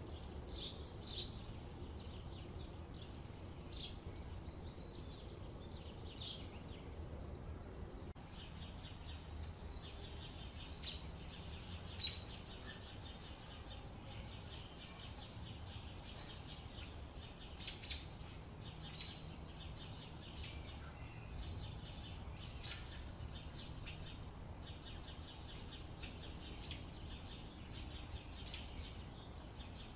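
Birds chirping: short high calls every few seconds, over a steady low outdoor rumble.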